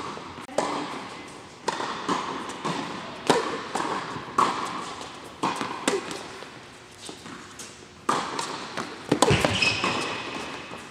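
Tennis rally: sharp pops of racket strings striking the ball and the ball bouncing on the hard court, every second or so, echoing in a large indoor hall. The hits pause for about two seconds before a quick cluster of strikes near the end.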